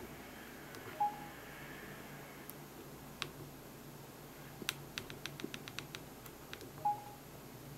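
Samsung NX11 camera being worked through its menu: a short electronic beep about a second in and another near the end, with a single click and then a quick run of about nine faint clicks from its back buttons and control dial.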